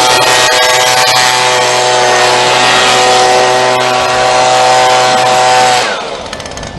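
Blower running steadily as it blows sawdust off a portable sawmill, then shutting off suddenly about six seconds in.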